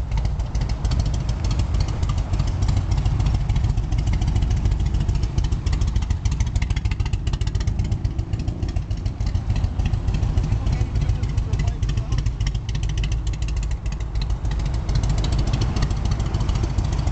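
Harley-Davidson V-twin motorcycle engine running at low speed, a steady low rumble with rapid uneven pulsing.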